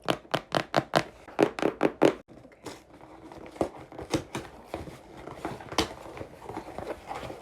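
Packaging being torn open by hand: a quick run of about ten sharp rips in the first two seconds, then softer crinkling and rustling as the parcel is opened.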